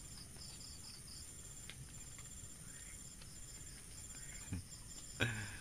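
Night insects chirping: steady runs of short high chirps, about four a second, over a constant high-pitched whine. A brief low voice-like sound near the end.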